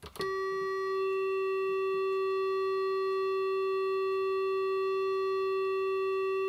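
Homemade ATtiny85-based synthesizer holding one steady square-wave note in two-operator FM mode, with operator feedback straightening the wave. It comes in with a click just after the start and holds unchanged.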